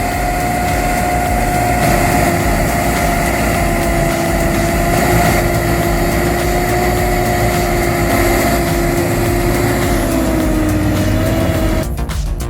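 An engine running steadily with a constant whine, with no revving. Near the end it cuts off abruptly and music begins.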